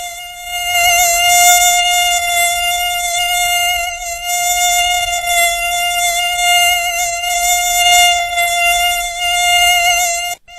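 Mosquito whine: a steady, high-pitched buzz of beating wings with a slight waver in pitch. It breaks off briefly near the end.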